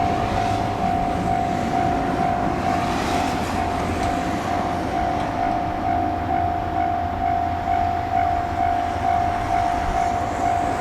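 Japanese level-crossing warning bell ringing in rapid, even repeats, over the rumble and hiss of a train running past the crossing.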